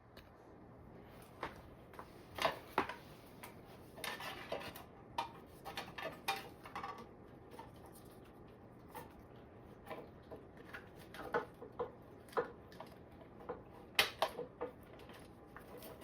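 Irregular light clicks and clinks of small parts and tools being handled while working on e-bike wiring, some bunched in quick runs and a few sharper knocks.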